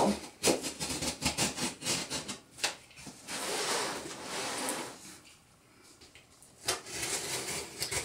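Box knife slitting packing tape on a cardboard box. A run of small scrapes and clicks is followed by a longer rasping cut about three seconds in, then a short lull before more clicks near the end.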